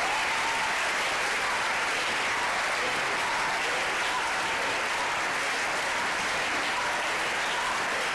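Theatre audience applauding, a dense, steady wash of clapping.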